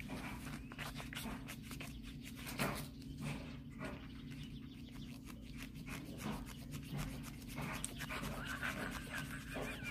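Soft rustling and small clicks of fingers handling a book's paper page, trying to turn it, over a low steady hum.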